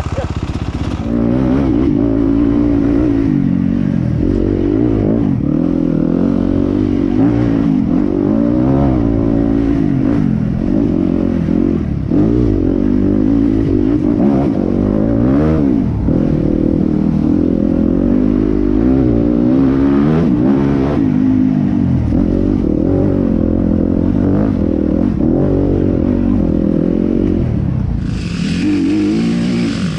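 Yamaha WR250F's 250 cc single-cylinder four-stroke engine through an Akrapovic exhaust, ridden hard with the revs rising and falling again and again as the rider works the throttle and gears.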